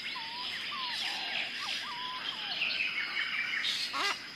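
Jungle ambience: many birds calling and chirping at once over a steady high insect drone. Several short whistled notes stand out, and a brief call with stacked tones comes near the end.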